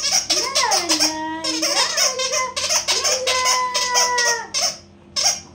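A woman's high, sing-song voice with pitch sliding up and down, mixed with quick clicking sounds, in playful, wordless-sounding baby talk; it breaks off about five seconds in.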